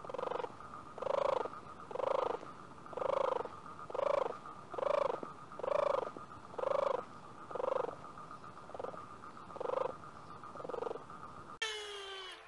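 About a dozen rhythmic animal calls, roughly one a second, each a rasping note that rises and falls in pitch and has a fast rattling texture, growing fainter toward the end. A steady high-pitched whine runs underneath. Near the end the sound cuts to quick falling whistle-like glides.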